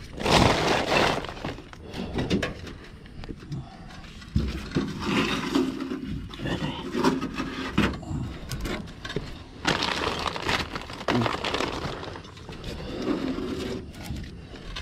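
A plastic bag rustling and crinkling, loudest in the first second or so, then gloved hands scraping leaves and debris out of a roof gutter in irregular bursts.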